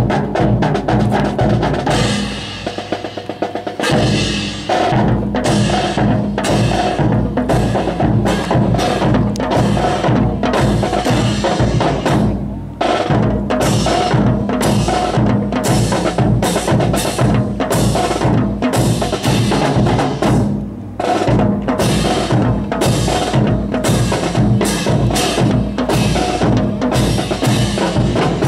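Marching music driven by a steady drum beat of snare and bass drum, with sustained pitched tones underneath and a brief drum roll about three seconds in.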